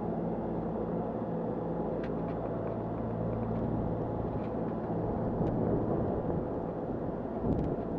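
Steady low hum of an engine or machine running, with a few faint clicks.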